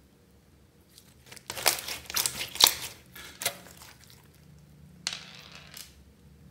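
Glossy clear slime being stretched and pulled by hand, giving sticky crackling and a few sharp pops. The sounds come in a cluster from about one and a half to three and a half seconds in, then again briefly near five seconds.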